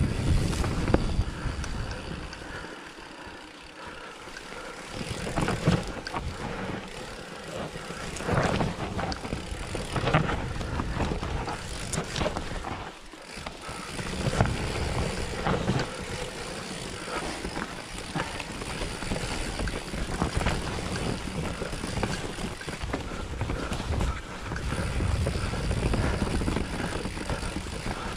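Commencal Meta V4.2 mountain bike descending a rough dirt trail: tyres rolling over dirt with many short knocks and rattles from the bike over bumps, and wind buffeting the microphone.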